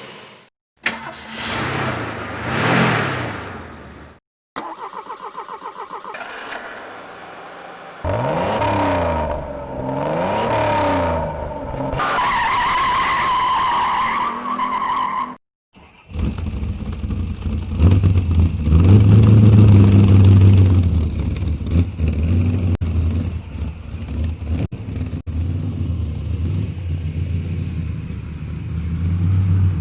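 Separate car engine recordings in a row. First a short rev that rises and falls. Then a starter cranks with a regular rhythm for a few seconds before the engine catches, revs up and down and holds a high rev. Last, another car engine runs and revs, loudest a couple of seconds into that recording.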